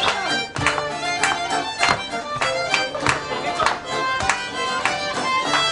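Greek folk dance music: a violin playing a lively melody over a steady beat, with a sharp strike about every 0.6 seconds.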